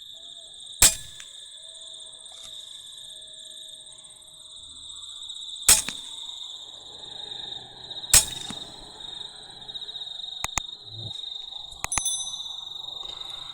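Air rifle firing three sharp shots, about a second in, near six seconds and near eight seconds, over a steady chirring insect chorus, with a few fainter clicks near the end.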